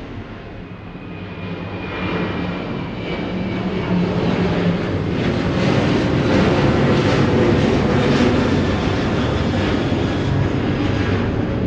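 Airbus A350 airliner passing overhead at a medium-slow cruise, its jet engine noise growing louder over the first few seconds and holding at its loudest through the middle, with a steady low hum under the rush.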